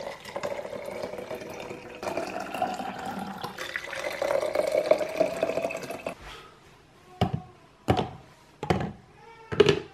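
Water poured from a kettle into plastic baby bottles, a steady splashing stream for about six seconds with a faint rising pitch as the bottles fill. It stops, and about four short, sharp knocks follow, just under a second apart.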